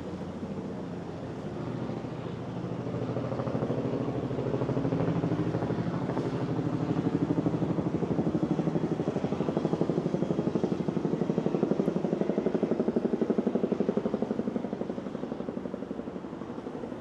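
A motor vehicle passing, growing louder over several seconds and easing off near the end, with a fast, even pulse throughout.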